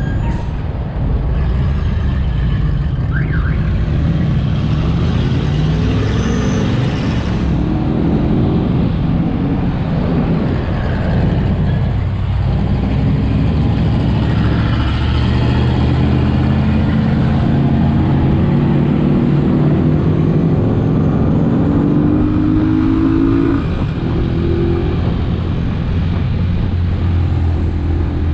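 Italika DT 125 motorcycle's engine running under way. Its pitch climbs steadily for several seconds in the second half, then falls abruptly.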